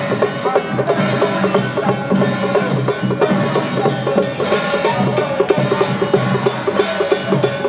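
Temple procession music: percussion striking a steady beat of about two strokes a second, with a sustained melodic line over it.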